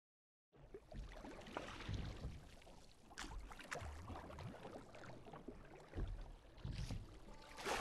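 Faint on-location sound of a wooden rowboat on a canal, rowed with a long oar: irregular low rumbles with scattered light clicks and knocks.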